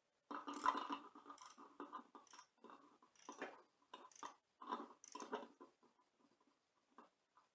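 Ratchet wrench clicking in a run of short, irregular strokes, faint, thinning out after about five seconds with a couple of last ticks near the end.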